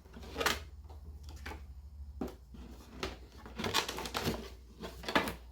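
Camera box and packaging being handled: paper and cardboard rustling and scraping, with a few light knocks.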